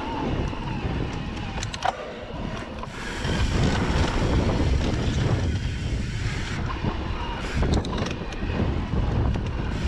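Wind buffeting the microphone over the rumble and rattle of a Santa Cruz Heckler mountain bike riding down a dirt singletrack, with a few sharp knocks; it gets louder about three seconds in.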